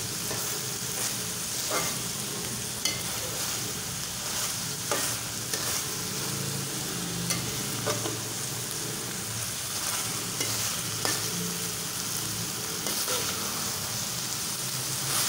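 Chicken mince and peas sizzling as they fry in oil in a metal pot. A metal spoon stirs them continuously, scraping and knocking against the pot now and then, which keeps the mince from sticking to the bottom.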